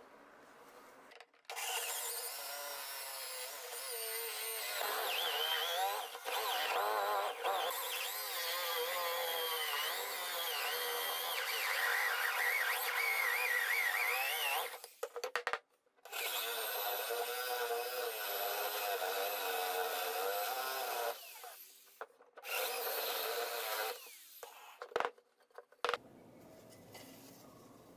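Electric drill in a portable drill guide boring large holes through a wooden board; the motor's whine wavers in pitch as the bit loads up in the wood. It runs in three bursts with short breaks, the last one short, followed by a few clicks near the end.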